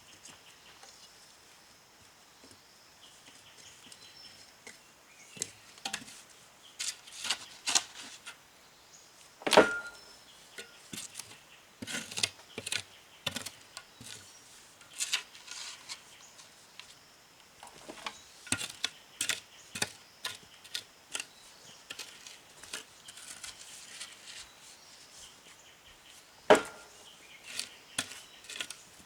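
Irregular knocking and clattering from hand work, with a sharp louder knock about ten seconds in and another near the end.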